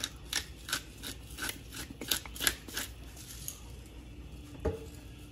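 Hand-turned pepper mill grinding black pepper in short, even strokes about three a second, stopping about three seconds in. A single knock follows near the end.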